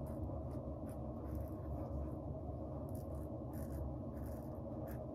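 Timeless stainless-steel safety razor with a Feather blade scraping through lathered stubble in short, repeated strokes, a crisp rasp with each pass.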